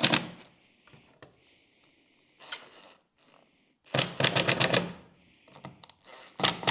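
Screwdriver ratcheting in quick bursts of evenly spaced clicks as a mirror's Phillips screws are snugged up: one burst about four seconds in and another near the end, with a single sharp click at the very start.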